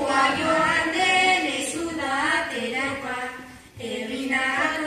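Children singing Basque bertso verses to a sung melody, with held notes and a brief pause between lines about three and a half seconds in.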